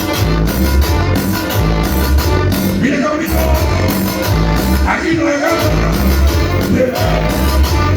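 Cumbia music with a steady bass beat, percussion and a singing voice.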